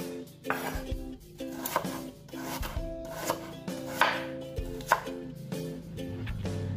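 Cleaver-style kitchen knife chopping a red onion on a wooden cutting board: irregular sharp knocks of the blade against the board.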